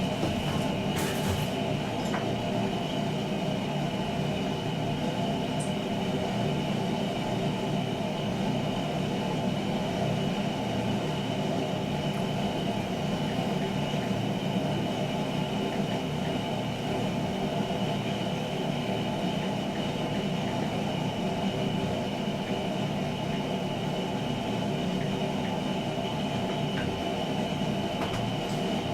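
A machine running with a steady, unchanging drone and a thin high whine over it, with a couple of light clicks about a second in.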